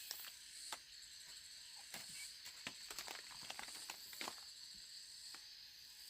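A steady high insect drone with scattered light snaps and clicks over it, thickest in the middle stretch.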